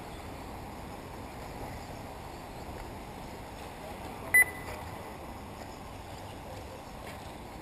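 A single short, high electronic beep about four seconds in, over a steady low background rush of open-air noise.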